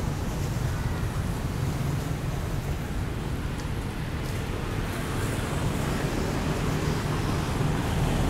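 Steady low rumble of outdoor background noise with a faint hiss above it, growing slightly louder near the end.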